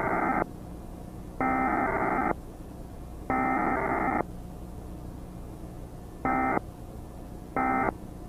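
Emergency Alert System SAME data bursts, degraded by generation loss: the end of one long burst, then two more of about a second each, followed by two short bursts. This is the pattern of the three header bursts and the start of the three end-of-message bursts. A steady low hum runs between the bursts.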